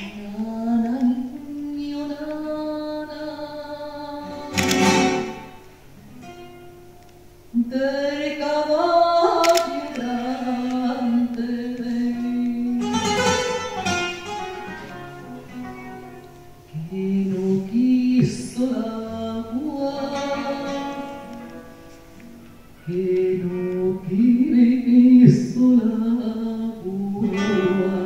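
A woman sings a slow flamenco nana (lullaby) in long, bending phrases, accompanied by a nylon-string Spanish guitar, with a few sharp strummed chords between lines.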